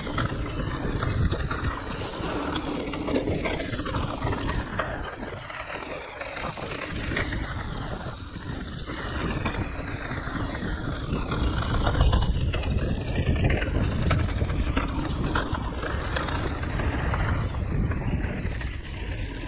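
Giant Reign E+ electric mountain bike riding down a rough enduro trail: a continuous rumble of tyres over dirt and roots, with constant rattling and knocks from the bike.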